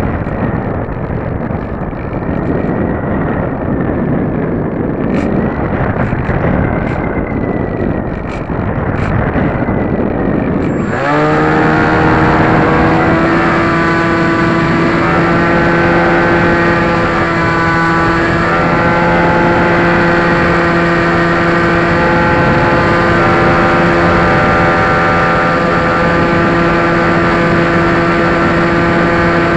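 Air rushing past the onboard camera of a Dynam Hawk Sky electric RC plane, with a few light clicks. About eleven seconds in, the electric motor and propeller suddenly come up to power and give a steady whine that holds to the end.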